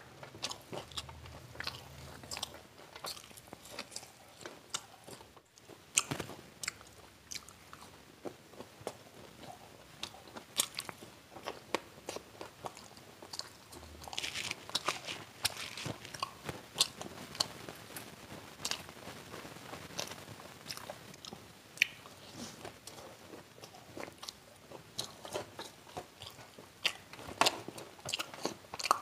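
Close-up crunching and chewing of deep-fried snacks, crisp battered chops and fried chicken, with many sharp, irregular crunches.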